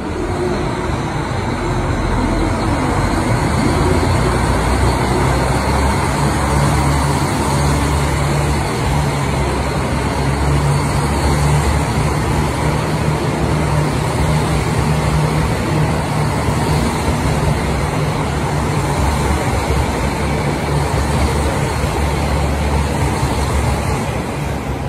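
KiHa 261 series diesel multiple unit rolling past, its diesel engines running with a steady low hum over continuous wheel-and-rail noise.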